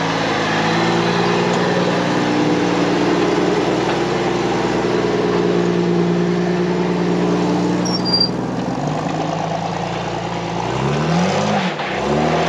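Rock-crawler buggy's engine pulling under load as it climbs a rock ledge, held at steady revs for most of the time and easing off about nine seconds in. Near the end the throttle is blipped, the revs rising and falling several times.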